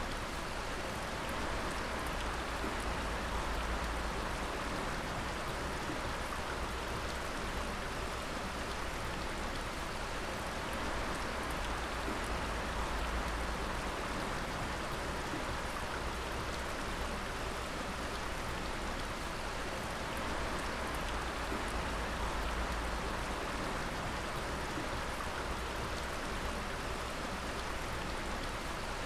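Water dripping steadily, many drops falling at once into an even, unbroken hiss.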